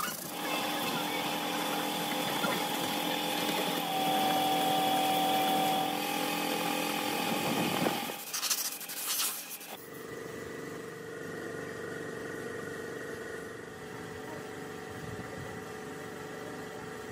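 A motor running with a steady hum; a brief louder noise about eight seconds in, after which the hum continues quieter at a different pitch.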